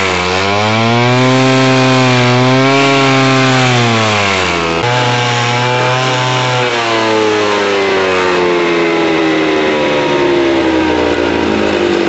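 Alpine Magnum stump grinder's engine running under load while its cutting wheel grinds wood, with a steady grinding noise over the engine. The engine pitch dips and recovers twice, then sinks slowly over the last few seconds as the engine is loaded harder by the cut.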